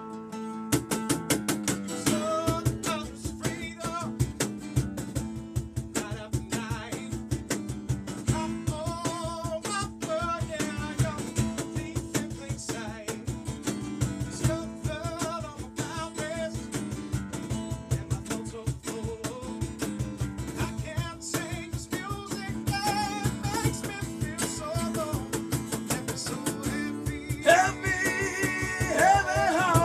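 Live acoustic band music: a strummed acoustic guitar and drums keep a steady beat while a man sings, the vocal coming in about two seconds in and rising strongest near the end.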